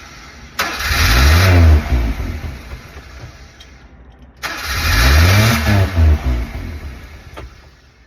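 Honda Acty engine starting, revving up briefly and dying again within a couple of seconds, twice. It is the start-then-die fault the owner traced to a bad ignition switch with burnt contacts.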